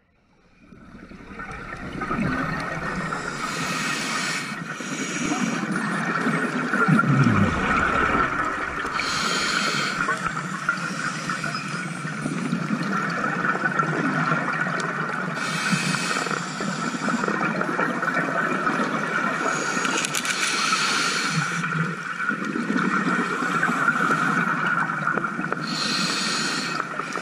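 Scuba divers breathing on regulators, heard underwater: rushes of exhaled bubbles come about every five to six seconds over a steady underwater hiss.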